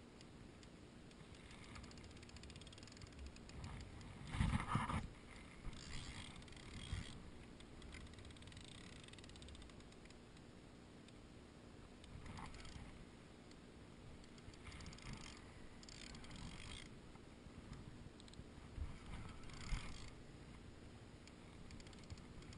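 Spinning reel cranked in short spells under the load of a hooked wels catfish, with rustling and knocks from the rod and reel being handled; the loudest spell comes about four seconds in.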